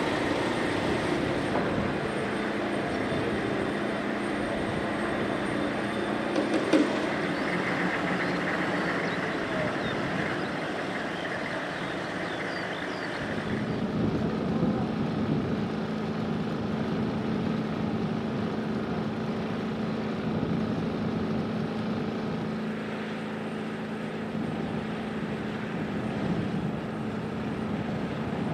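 Steady whine and hum of helicopter turbine machinery running, with a short click about seven seconds in. About halfway through, the hum abruptly drops to a lower, stronger tone.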